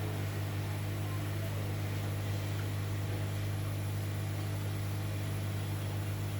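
Hot air rework station blowing: a steady, even hum with an airy hiss from its blower.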